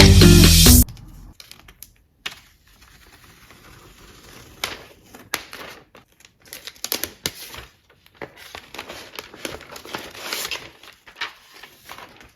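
Quiet unboxing sounds from an iPad Pro's packaging being opened: scattered small clicks and taps with bursts of crinkling and tearing paper or plastic.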